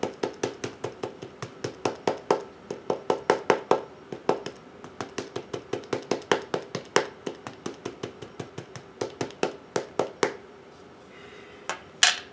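Ink pad dabbed rapidly onto a 3D-printed TPU rubber stamp on a clear acrylic block, a quick run of soft taps about four or five a second, inking up the stamp. The tapping stops about ten seconds in, and a couple of sharp clicks follow near the end as the acrylic block is handled.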